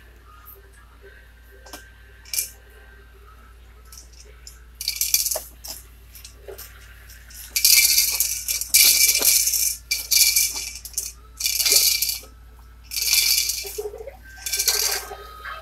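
Plastic bead-rattle toy on a baby activity-center tray rattling in a series of short bursts as a baby's hand shakes and spins it, the clear dome's loose beads clattering about six times.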